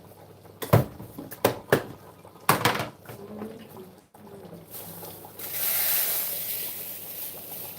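A few sharp knocks of pots or dishes in the first three seconds, then a steady rush of running water from about five seconds in.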